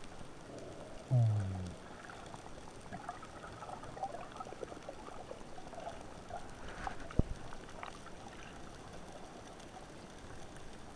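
Underwater sound picked up by a diving camera: a steady hiss with scattered faint crackling. About a second in comes a short, loud low tone that drops in pitch, and about seven seconds in a single sharp knock.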